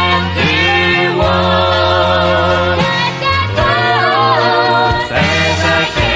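A gospel vocal group singing together in harmony, long held notes over low bass notes that change every second or so.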